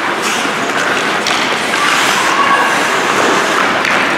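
Loud game-crowd noise: many voices at once, none clear, with a few sharp thuds.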